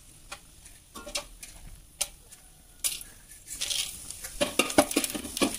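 Whole spices (bay leaves, fennel seeds, cloves, cardamom, cinnamon) frying in hot sesame oil in a pan. A few scattered ticks and pops at first, then denser, louder crackling and sizzling over the last couple of seconds as more spices go into the oil.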